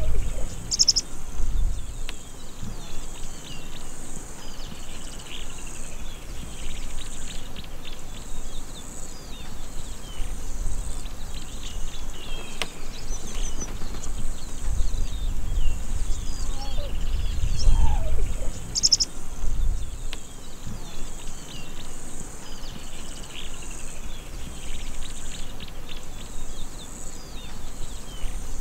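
Savanna ambience: many small birds chirping and a steady high insect buzz, with a few low rumbles, the longest a few seconds past the middle.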